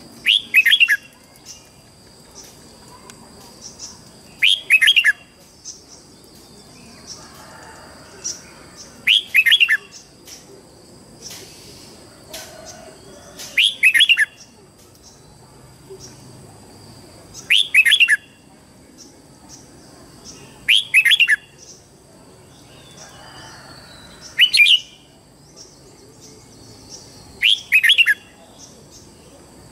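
Red-whiskered bulbul singing its morning song: short, loud whistled phrases of a few quick notes, repeated about every four seconds.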